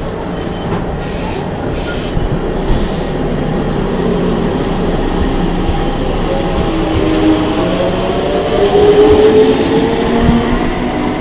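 Kintetsu 1233 series electric train running, its Hitachi GTO VVVF inverter giving a whine of several tones that climb together from about six seconds in as the train picks up speed, over a steady rumble of wheels on rail. This is the unusual inverter noise the 1233 series sometimes makes.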